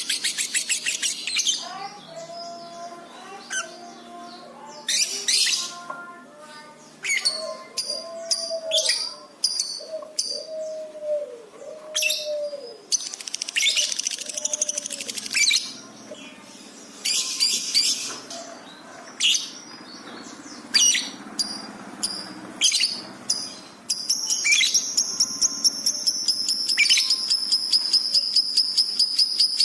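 Lovebird singing: a string of sharp, separate high chirps over softer, lower warbled notes, then near the end a long, fast, unbroken trill.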